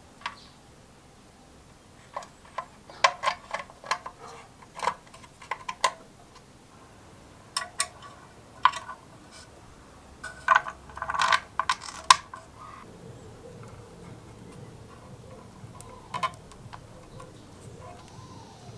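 Small metal parts and tools clinking and tapping on a workbench, in irregular clusters of sharp clicks, busiest around ten to twelve seconds in, with one last click near the end.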